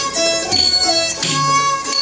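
Northern Thai salo-so-sueng folk ensemble playing a tune: bowed salo fiddles carrying the melody over plucked sueng lutes, with a drum striking a steady beat.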